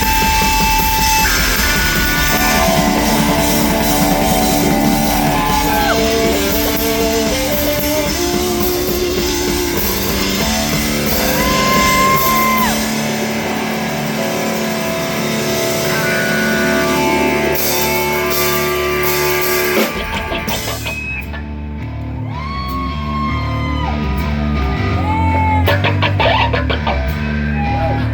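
Live rock band playing, with electric guitar, drum kit and singing. About twenty seconds in the band drops back to a quieter passage where the voice stands out more.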